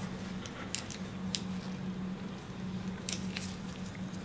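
A few scattered light clicks and taps as the plastic parts of a triple-tray articulator and a small screwdriver are handled, over a steady low hum.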